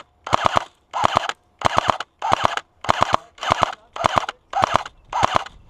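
Airsoft electric gun firing about ten short bursts of three or four shots each, roughly two bursts a second. Right afterwards the shooter says the gun is slowly dying and needs a fresh battery.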